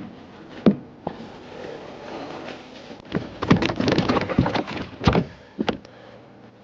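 Knocks, thumps and scuffing from a caught redfish being handled on a boat: a few sharp knocks in the first second, then a busier stretch of rustling and knocking from about three to six seconds in.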